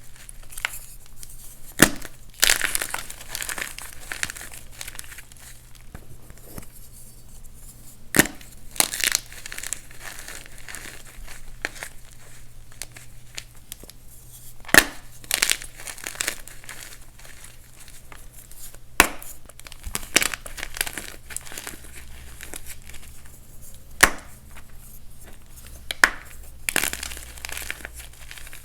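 Dyed, reformed gym chalk blocks being crushed: a sharp crack every few seconds as a block snaps, each followed by dry crumbly crunching as it breaks apart.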